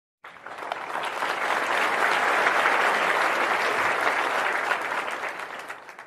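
Crowd applause, many people clapping together: it starts abruptly, builds over the first couple of seconds, holds steady and then dies away near the end.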